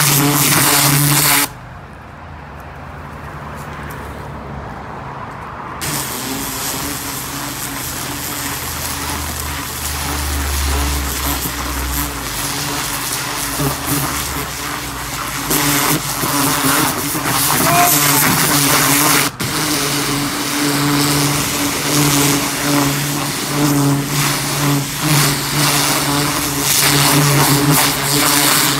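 Gas pressure washer running steadily while its high-pressure jet blasts into loose soil with a loud hiss. About a second and a half in, the hiss cuts out for about four seconds while the engine keeps running, then the spray resumes.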